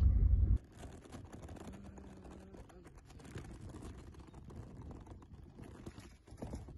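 Low road rumble inside a moving car that cuts off abruptly about half a second in. After that, only faint outdoor ambience with light scattered clicks and rustling.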